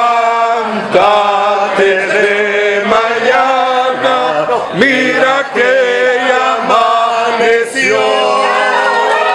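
A group of people singing together, each note held for about a second.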